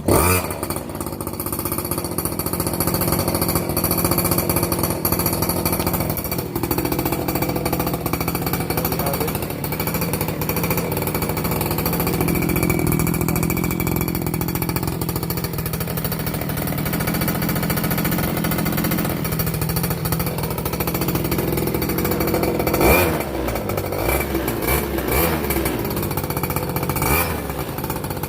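Small engine of a freshly rebuilt X1 pocket rocket mini bike starting at once and running with a rapid, rattly buzz at a steady level.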